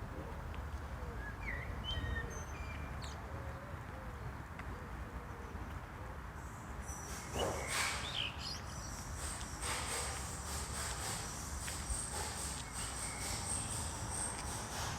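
Birds chirping over a steady low hum. About halfway through, a high, steady whine with a fast, regular pulse joins in.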